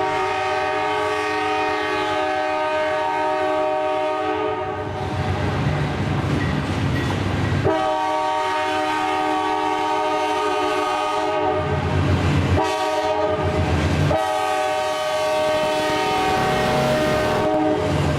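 CSX locomotive's air horn sounding three long blasts, a chord of several steady notes, with the low rumble of the passing train between them.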